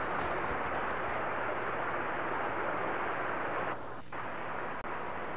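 Small waterfall pouring steadily over stacked rocks, a continuous splashing rush, with a brief dip about four seconds in and a momentary cut-out near the end.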